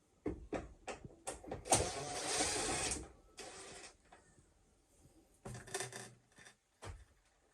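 A series of sharp mechanical clicks and knocks, with a rattling burst of about a second near the start, a shorter one after it, and a dull thump near the end.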